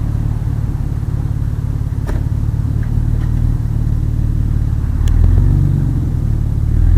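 Small-block 350 V8 in a Chevy S10 pickup running at a low, steady idle, its engine note rising and getting louder about five seconds in as it is given throttle.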